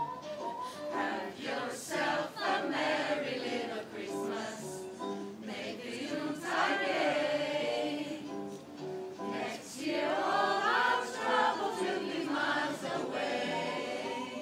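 A group of voices singing a Christmas carol together, choir-style, louder in two phrases about six and ten seconds in.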